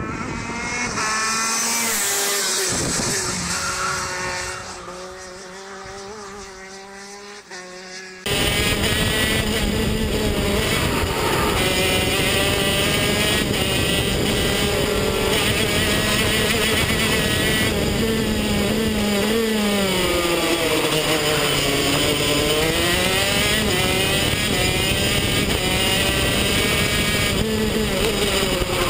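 Kart engines heard from trackside, getting louder and then fading. About eight seconds in the sound changes abruptly to the onboard sound of a 125cc KZ shifter kart's two-stroke engine running hard, its pitch dipping and climbing again several times.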